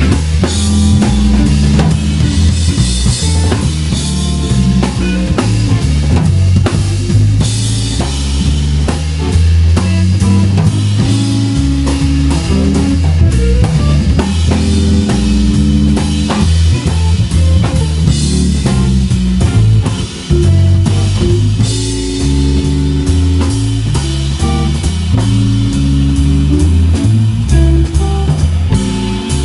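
A live instrumental band playing: electric guitar, electric bass and drum kit, with a busy bass line under cymbals and drums.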